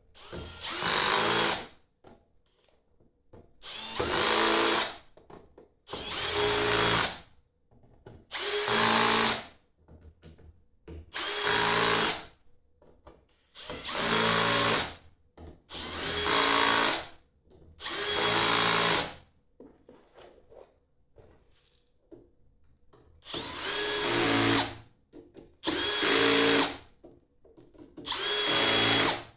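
Cordless drill-driver driving small screws into a metal battery front panel in short runs. There are about eleven runs of a second or so each, two to three seconds apart, with a longer pause a little past the middle.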